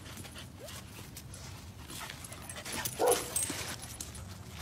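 A dog gives one short call about three seconds in, amid light rustling and clicks.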